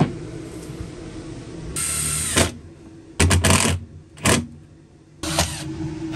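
A handful of knocks and rattles from a bolted-in wooden camper table being pushed and tugged, over a fan running steadily in the background.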